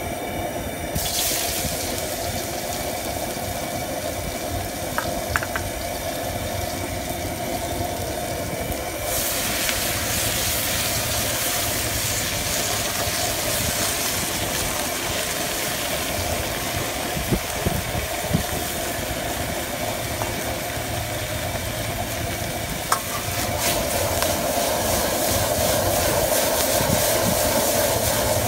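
High-power outdoor gas wok burner running steadily under a carbon steel wok, with food sizzling and frying in the hot wok; the sizzle grows louder about nine seconds in as ingredients hit the pan. A few sharp clacks of the metal ladle against the wok.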